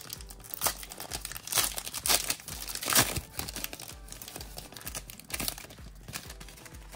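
Foil wrapper of a Panini Select basketball card pack crinkling and crackling as it is torn open and handled, loudest about three seconds in.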